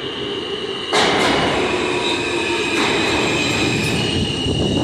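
New York City subway train pulling into an underground station and running close past. It gets suddenly louder about a second in, with a steady high-pitched squeal over the rumble.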